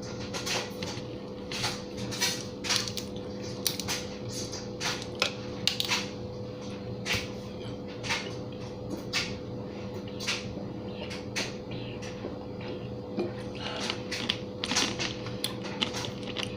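A person chewing food close to the microphone: irregular sharp crunchy clicks and mouth smacks, one or two a second, over a steady low hum.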